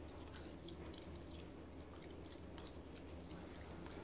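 Small dog chewing a raw spinach leaf: faint, irregular wet clicks and crunches from its mouth.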